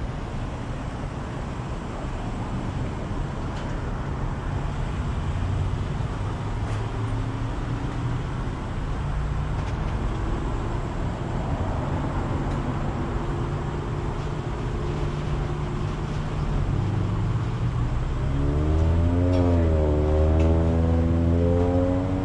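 Vehicle engine running at low speed and then idling, a steady low hum whose pitch dips and rises briefly near the end and then holds.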